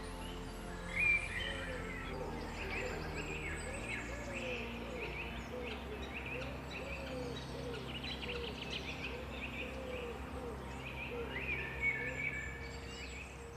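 Small songbirds chirping and trilling over soft ambient music with long held low notes that change every few seconds.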